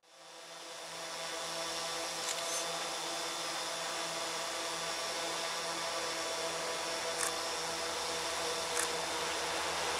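Steady hum of distant EMD E8 diesel locomotives approaching, their engines a drone of several tones, fading in at the start.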